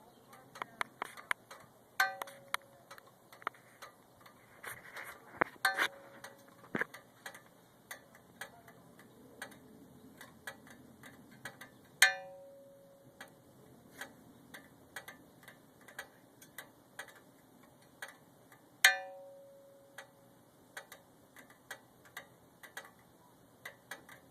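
Irregular ticking and rattling from a 2002 Chevy Malibu, with a louder metallic clink that rings briefly every several seconds, four times in all. The ticking is a noise the owner thinks is not good.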